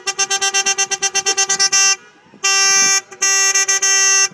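Car horn sounding in a fast string of short beeps, about eight a second, for roughly two seconds. After a brief pause it gives two long blasts.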